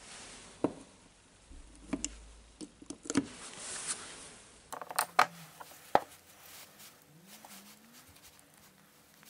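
Scattered clicks and taps of needle-nose pliers and small metal parts on a Dewalt drill's gear housing, with the rustle of gloved hands and paper towel; the clicks cluster in the first six seconds, then only a few faint ones follow.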